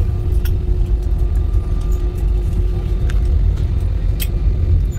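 Airliner cabin noise: a loud, steady low rumble of the engines and airflow with a faint steady hum over it, and a few light clicks.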